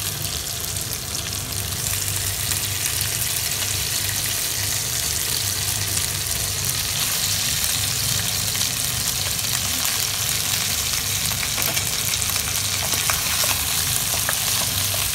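Boiled chicken pieces frying in hot oil with minced garlic in a pan: a steady sizzle with a few small pops near the end. This is the second cooking of chicken adobo, the meat being browned after its braise.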